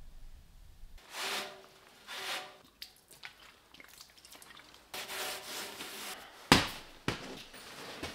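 Short rubbing and scraping handling noises from work on metal parts, with a sharp knock about six and a half seconds in and a lighter one just after.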